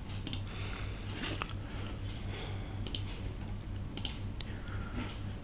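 A few faint, scattered computer mouse and keyboard clicks over a steady low electrical hum.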